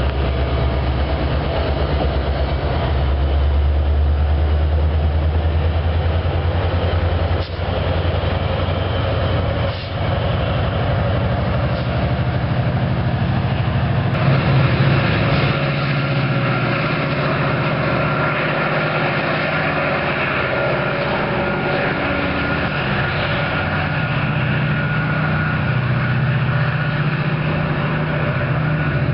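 Metra diesel commuter trains at close range. Bilevel passenger cars roll past with a heavy low engine drone. Later a train approaches with a lighter rumble and a thin steady whine above it.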